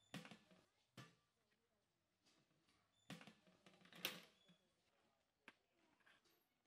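Serving spoon and spatula scraping and knocking against a large pot of cooked mutton khichuri, faint overall with a few sharp clatters, the loudest about four seconds in.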